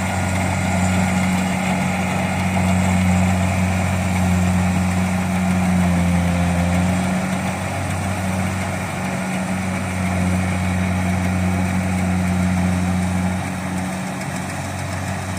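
Kubota DC-70 Plus combine harvester's diesel engine running steadily with a constant low hum.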